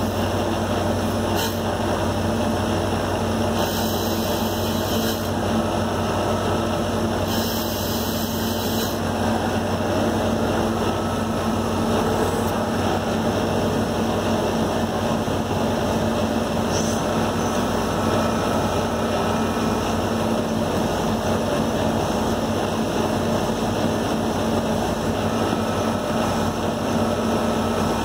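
Omniturn CNC lathe running its cycle, with a steady hum from the spindle and machine. Two brief spells of high hiss come about four and eight seconds in.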